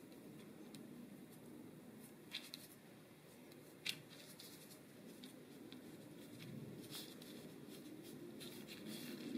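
Faint rustling and soft clicks of parchment paper and soft dough scraps being lifted and handled, over quiet room tone; a couple of sharper ticks, the loudest about four seconds in.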